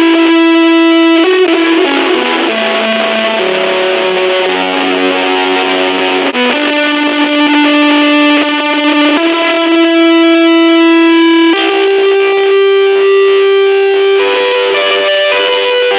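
Distorted electric guitar played through a Junkbox Amplification Death Metal Drone battery-powered mini amp: slow, long-held single notes that step to a new pitch every second or two, with a brief break about six seconds in.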